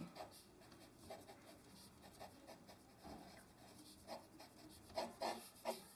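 Pencil drawing on paper: faint, short strokes, with a few louder, quicker strokes in the last couple of seconds.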